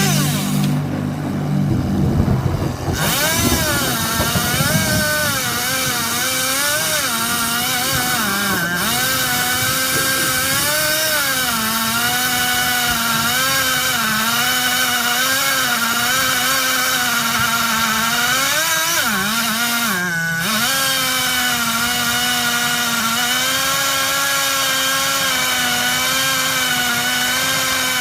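Stihl MS 170 two-stroke chainsaw running near full throttle and cutting, its high engine note wavering and dipping repeatedly as the chain loads up in the wood, then recovering.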